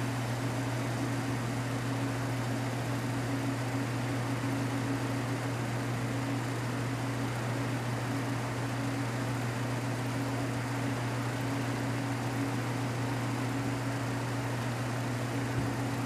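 1933 Frigidaire refrigerator's condensing unit running: electric motor and refrigerant compressor humming steadily as the compressor pulls the low side down after start-up on a fresh refrigerant charge. An even hiss of rain lies behind it.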